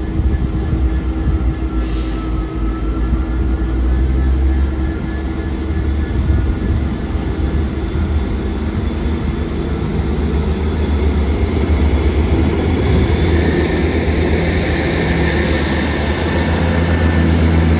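Class 158 Sprinter diesel multiple units pulling away, their underfloor diesel engines working under power in a steady low drone that grows louder as the units come past.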